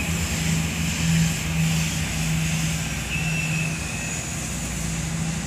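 An engine running steadily at idle: a constant low hum, with a faint high whine for about a second around three seconds in.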